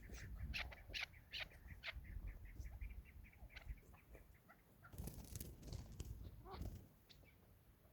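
Chukar partridge calling: a fast run of repeated clucking notes with a few sharper, louder calls in the first two seconds, thinning out after about three seconds. A brief noisy rustle comes about five seconds in.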